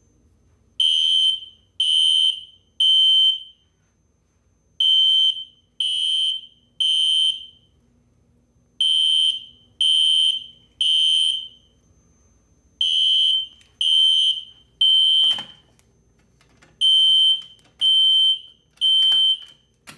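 System Sensor P1224MC horn strobe sounding in the temporal-three evacuation pattern: three loud, high-pitched beeps about a second apart, then a pause, repeating steadily after the pull station has been activated. A single knock sounds about 15 seconds in.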